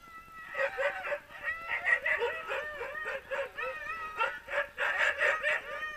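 A team of sled dogs in harness yelping, barking and howling all at once, a dense, continuous clamour that breaks out about half a second in: the excited din of hitched sled dogs waiting to run.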